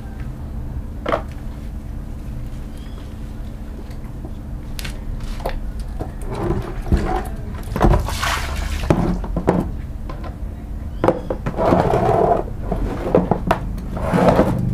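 Water sloshing and splashing in a plastic basin as a small dog is washed, in irregular bursts, with the biggest splash about eight seconds in as the basin is tipped over and its water poured out onto concrete.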